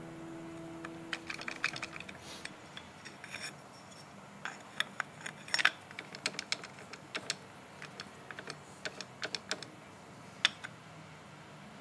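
Irregular light clicks and small metallic clinks of hand tools and small metal parts being handled, in scattered bunches with a few louder knocks.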